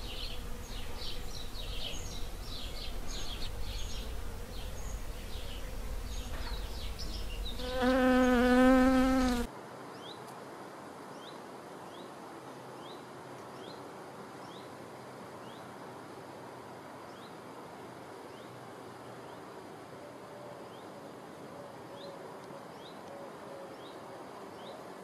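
Honeybee buzzing close by, its pitch wavering and loudest about eight to nine seconds in, with birds chirping over it. It cuts off abruptly at about nine and a half seconds, giving way to quieter outdoor ambience with a short high chirp repeating about once a second and a faint buzz near the end.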